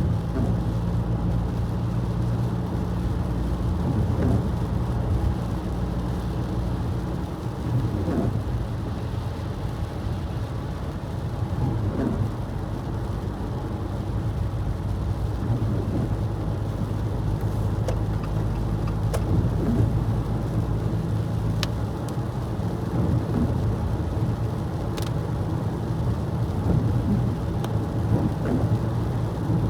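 Car driving on a wet road in snow and rain: a steady low hum of engine and tyres, with a few faint ticks in the second half.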